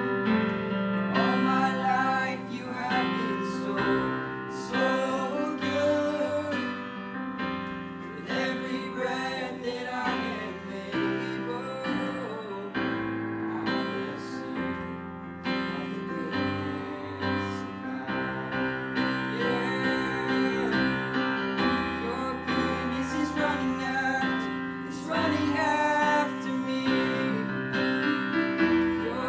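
Worship music: piano or keyboard chords with singing voices over sustained bass notes.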